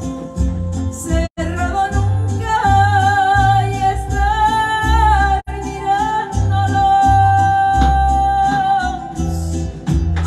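A woman singing long held notes with vibrato over backing music with a steady, pulsing bass. The sound drops out for an instant twice.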